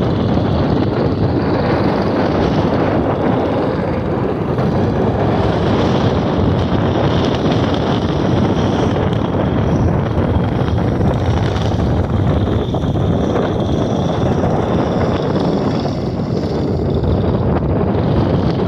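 Steady wind buffeting the microphone, mixed with the engine drone of wooden fishing boats motoring past on the water.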